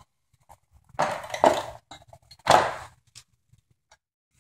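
A heavy metal vise base knocked and clattered about twice, about a second and a half apart, as it is lifted out of the electrolysis tank and shaken off.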